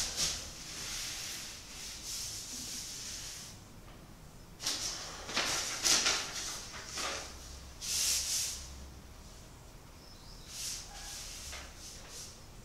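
Dry rustling and scraping in short bursts: a paintbrush stroking a canvas laid on the floor, and plastic drop sheeting crinkling under the painter as he moves. A steadier rustle at the start gives way to separate bursts, quieter near the end.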